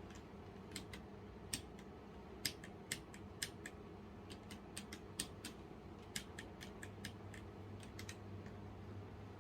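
Keys clicking on a Womier K66 mechanical keyboard with stock Gateron Brown switches: a string of irregular, fairly quick key presses.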